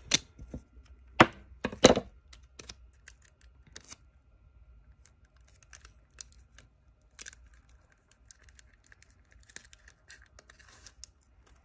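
Clear packing tape being pulled off the roll and cut, with three sharp rips in the first two seconds. After that, quieter crinkling and small clicks as the tape is handled and pressed onto a small piece of paper.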